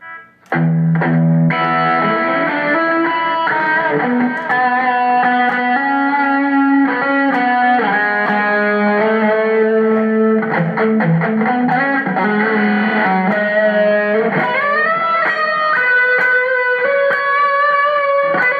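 Electric guitar played through a Zoom G3Xn multi-effects processor: a lead line of held notes that starts softly and comes in full about a second and a half in, with a rising pitch bend around fourteen seconds in.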